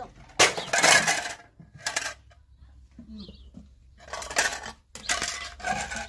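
Several short bursts of clattering and clinking as household things are handled, with quiet gaps between them.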